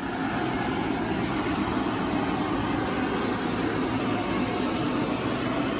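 Steady rushing hum of the electric air blower that keeps the inflatable paint booth inflated, running without change and a little louder from the very start.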